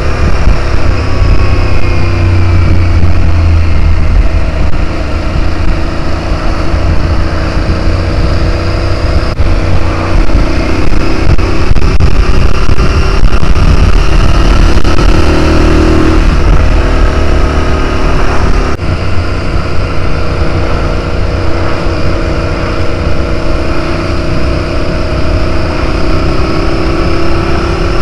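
Motorcycle engine running under way, its pitch rising and falling with the throttle through the curves, over heavy wind and road noise.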